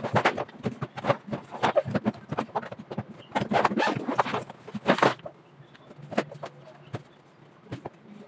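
Clothes rustling and a fabric suitcase being handled as garments are pulled out: a dense run of short rustles and knocks that thins out about five seconds in to a few scattered taps.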